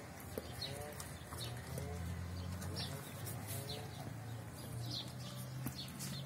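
Birds calling: short high chirps repeating every half second or so, with a few lower calls, over a low steady hum.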